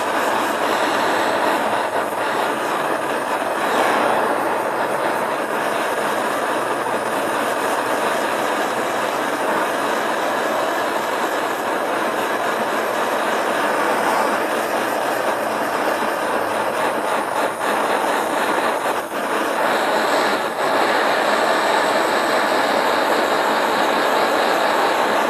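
Hand-held propane torch burning with a steady hiss as its flame is swept along a green bamboo pole to heat-treat it. The hiss briefly dips twice about three-quarters of the way through.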